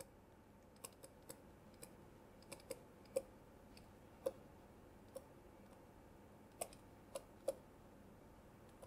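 Faint, irregular clicks of a stylus tip tapping on a tablet screen during handwriting, about a dozen scattered through, the sharpest around three and four seconds in.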